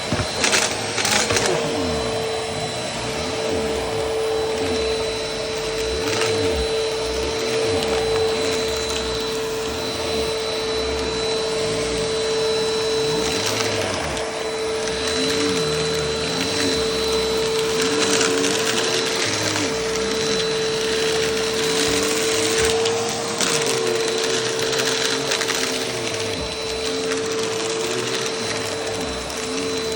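Vacuum cleaner running steadily with a constant motor whine and rushing air, with a few brief knocks as it is pushed around.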